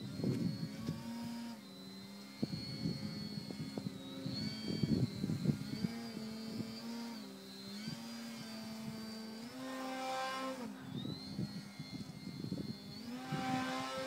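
Addiction RC 3D aerobatic model airplane flying overhead, its motor and propeller droning with a high whine on top, the pitch shifting up and down as the throttle is worked through the manoeuvres. It swells louder about ten seconds in and again near the end, with gusts of wind noise on the microphone.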